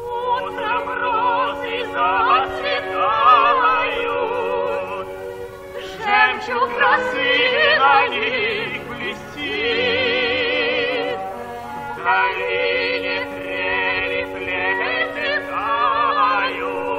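Operetta singing with orchestra, from an old 1947 recording with a dull, narrow sound. A singer with wide vibrato sings over sustained accompaniment, holding high notes about halfway through.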